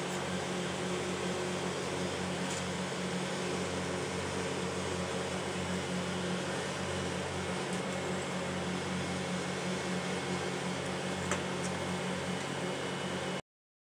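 Steady hum and fan-like hiss of refrigeration machinery, with a few low tones, and a couple of faint light clicks. The sound cuts off abruptly near the end.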